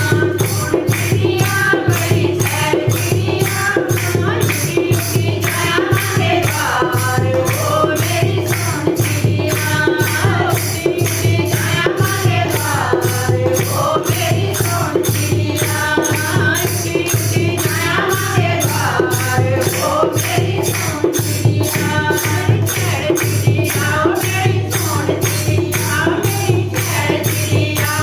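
Devotional bhajan kirtan music: group singing over hand percussion that keeps a steady beat about twice a second, with a steady low note underneath.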